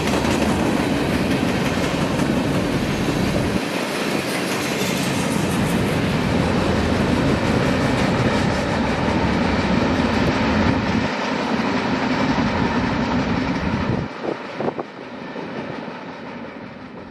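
Freight cars of a passing train, tank cars and then hoppers, rolling by close at hand with their wheels clattering over the rails. About fourteen seconds in the last cars go by and the sound drops to a fading rumble as the train moves away.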